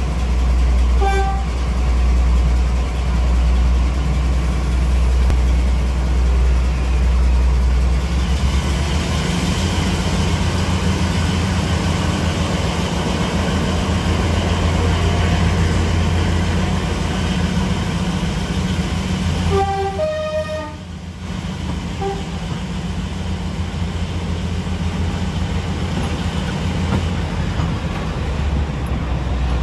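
Class 42 Warship diesel-hydraulic locomotive's twin Maybach engines running, heard close up from the cab window as it pulls away. The engine note rises about eight seconds in as power is applied. A short horn note sounds about a second in, and a two-note horn blast comes about two-thirds of the way through.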